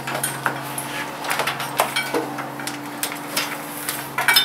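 Cables being pulled and handled, their plastic plugs and connectors clicking and knocking against the desk and each other in quick irregular clicks. A steady low hum runs underneath.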